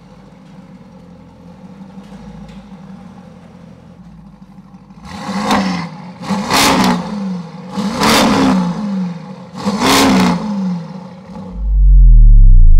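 Lamborghini Urus twin-turbo V8 with a Novitec exhaust idling, then blipped four times, each rev rising and falling in pitch. Near the end comes a very loud deep boom that falls in pitch.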